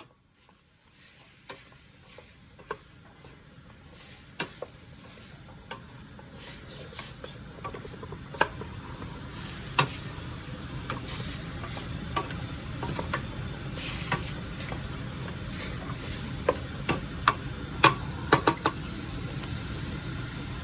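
Channa and aloo (curried chickpeas and potato) frying in a pot and being stirred, with a utensil knocking and scraping against the pot. The sizzle grows steadily louder.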